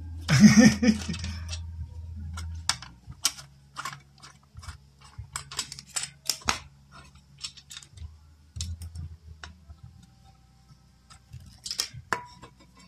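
Scattered small metallic clicks and taps from a screwdriver working the fan-grille screws of a PC power supply and the loosened wire grille being handled.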